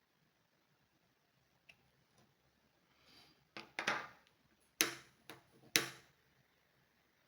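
Several short, sharp clicks and knocks, about five in two and a half seconds past the middle, like small hard objects being handled or set down on a hard surface.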